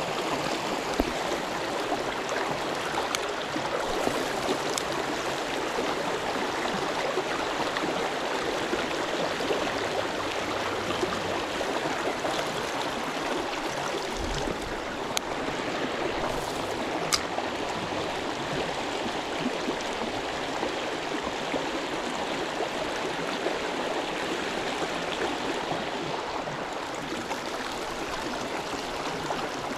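Shallow river flowing and rippling over stones, a steady rushing and burbling of water.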